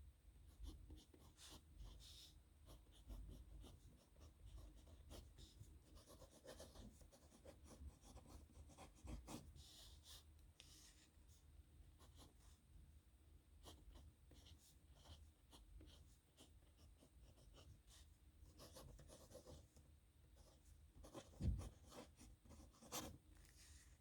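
Pen scratching on paper in short, quick strokes as signatures are written, faint and close. A single soft thump sounds near the end.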